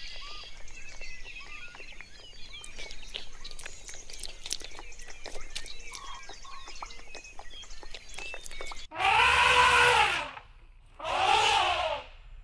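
Small birds chirping among faint ticking, then about nine seconds in an animal gives two loud calls about a second apart, each rising and then falling in pitch.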